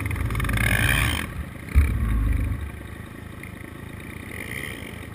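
Dirt bike engine running: a loud low rumble for the first second or so, a sharp knock at about two seconds with a second short rumble, then a quieter steady run.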